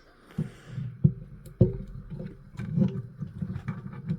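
Handling noise from a radio set being turned over and moved about on a workbench: irregular knocks, clicks and soft low thumps.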